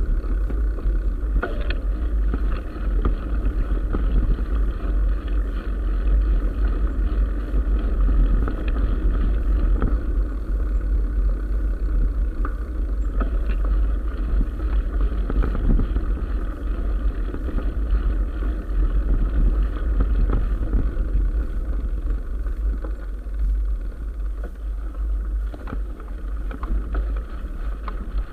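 Wind buffeting a mountain bike's action-camera microphone, a steady low rumble, mixed with the tyres rolling on a gravel track and occasional small knocks from the bike.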